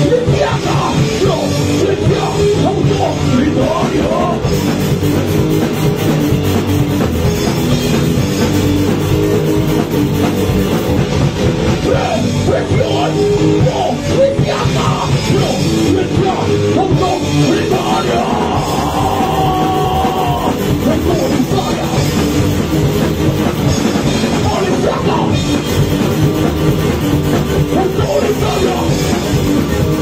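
A heavy rock band playing live: electric guitars, bass and a drum kit, with a vocalist singing into a microphone over them.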